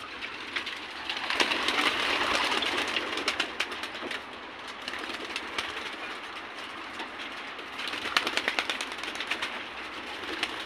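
Young racing pigeons at their loft, cooing and flapping their wings. The wing flaps are short sharp clicks over a rushing noise that swells from about one to four seconds in and again near the end.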